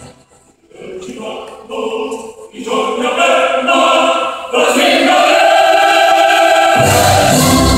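Operatic singing. After a brief pause the voice sings short phrases, then holds one long note, and low orchestral accompaniment comes in near the end.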